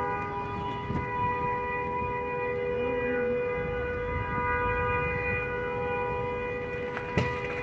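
A car horn blaring without a break: two steady notes held together at an unchanging pitch, as from the horn of the burning car. A sharp pop sounds near the end.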